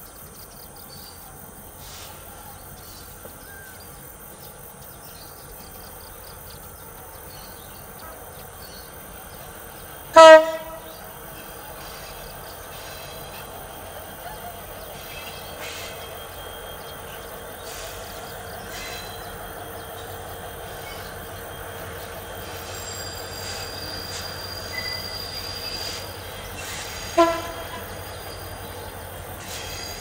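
Two short blasts of a CC 205 diesel-electric locomotive's horn, about seventeen seconds apart. Beneath them runs the steady rumble of the double-headed coal train's engines and wheels, growing slowly louder as it approaches.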